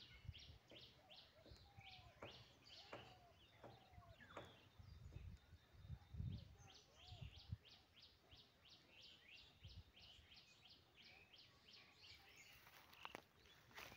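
Faint birdsong: a long run of short, high, falling chirps repeating about three times a second, with a few lower whistled notes mixed in, over a low rumble on the microphone.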